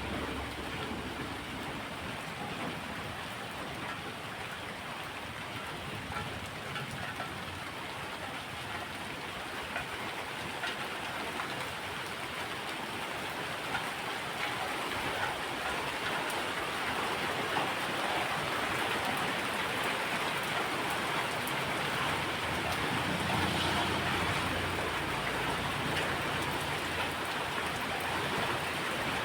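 Steady rain falling, a dense even patter of drops that grows a little louder about halfway through.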